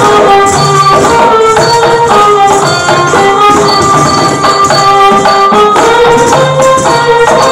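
Carnatic folk-style Kavadi Chindhu music in raga Anandabhairavi: a melody moving from note to note over jingling percussion with a steady beat.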